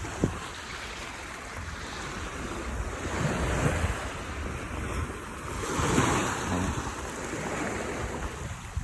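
Storm surge washing and surging against the harbor docks, with wind rumbling on the microphone; the wash swells about three seconds in and again around six seconds.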